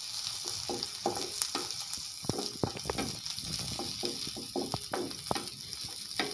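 Chopped onion and garlic sizzling in hot vegetable oil in a frying pan, with a wooden spatula stirring them and knocking against the pan many times at an uneven pace.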